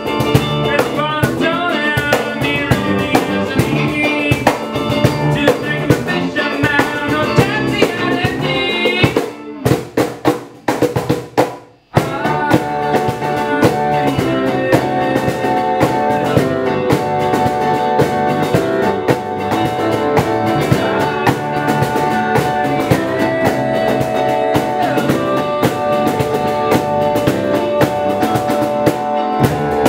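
Small band playing a song live, with a cajon keeping the beat under a Roland stage piano. The music nearly drops out about nine seconds in, with only a few scattered hits, then the full band comes back in about twelve seconds in.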